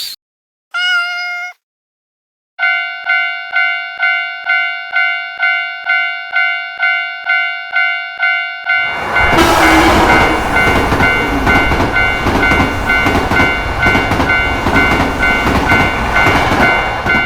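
Japanese railroad-crossing warning bell ringing its repeated 'kan-kan' strikes, about three a second. About nine seconds in, a train passes through with a loud rushing rumble over the bells, lasting about eight seconds. A short single horn-like tone sounds about a second in, before the bells start.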